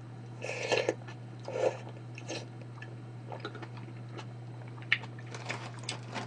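A person eating close to the microphone: two louder bites in the first two seconds, then quieter chewing with small mouth clicks. A steady low electrical hum runs underneath.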